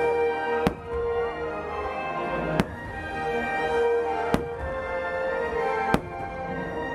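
Show music playing steadily, punctuated by four sharp firework bangs spaced about one and a half to two seconds apart.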